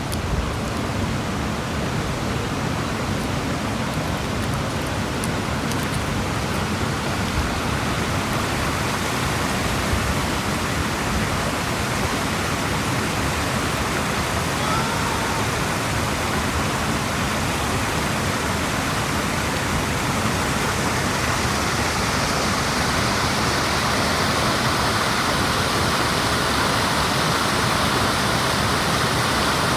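Steady rushing of running water in a canyon creek, growing slightly louder toward the end.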